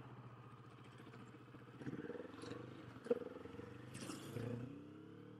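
Kawasaki Vulcan S parallel-twin engine running at low revs, then rising in pitch near the end as the bike pulls away, with a sharp click about three seconds in.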